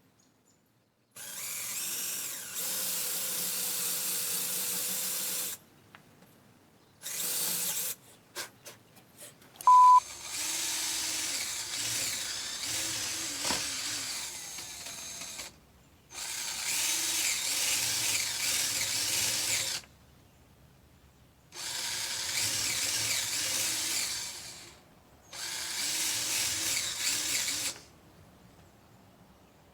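Power drill boring eye holes into a small chainsaw-carved wooden bear, running in about six bursts of a few seconds each with short pauses between. About ten seconds in there are a few clicks and a short, loud beep.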